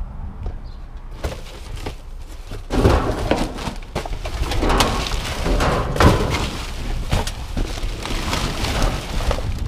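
Plastic garbage bags and packaging crinkling and rustling as gloved hands dig through a dumpster, getting louder and busier about three seconds in, with a few knocks before that.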